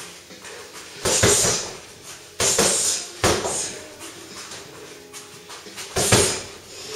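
Strikes landing on a freestanding punching bag: four heavy thuds at uneven spacing, with quieter shuffling between.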